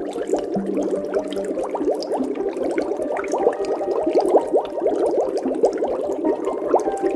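Many animals calling over one another: a dense, unbroken stream of short calls, each sliding quickly in pitch.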